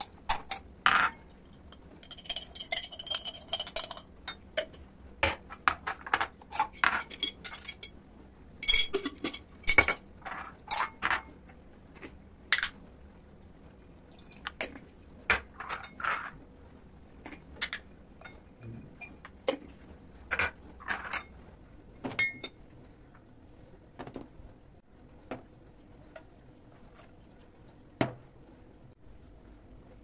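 Glass jars and a cut-glass bowl clinking and knocking against each other and the countertop as they are picked up and set down. The clinks come irregularly, thick and fast in the first half and sparser later, a few with a short ring.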